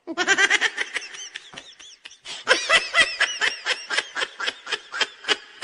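A person laughing in quick, high-pitched bursts of about seven a second, in two long bouts with a short break about two seconds in.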